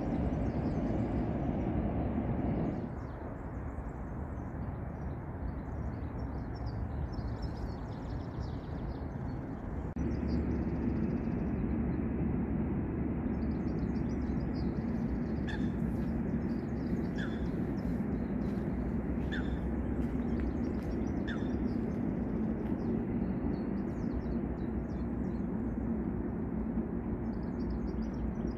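Outdoor ambience: a steady low rumble, with small birds chirping and one bird giving a short, sharp call four times about two seconds apart. The background shifts abruptly about three and ten seconds in.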